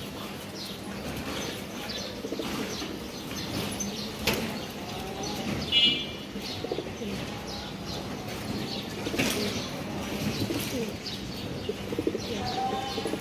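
Domestic pigeons cooing, with wing flaps and a few sharp knocks. A short high chirp comes about six seconds in.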